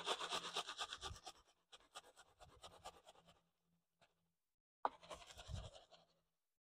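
Soft scratching and rustling of potting soil and dry leaf mulch as a gloved hand works fertilizer into a container: a busy spell at the start, thinner scratches to about 3 s, a pause, then another short spell about five seconds in.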